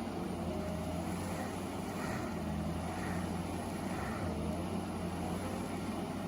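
Heavy forestry mulcher's engine running steadily, with an even low hum and no strokes or sudden changes.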